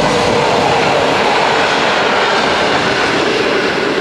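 Train running over a level crossing: a loud, steady rumble of wheels on the rails.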